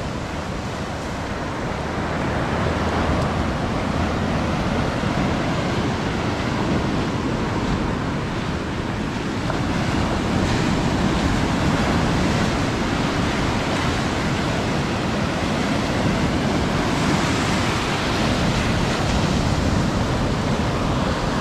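Sea surf breaking close by and foamy swash washing up and back over the sand, a continuous rushing wash that swells as each wave comes in.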